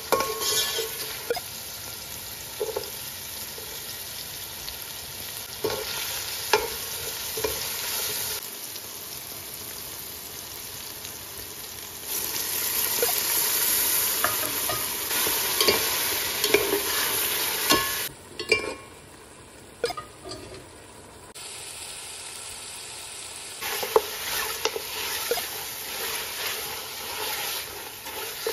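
Masala of onions, tomato and chillies frying and sizzling in oil in an aluminium pot. A metal slotted spoon scrapes and knocks against the pot as it is stirred. The sizzle is loudest for several seconds in the middle, and the level changes abruptly a few times.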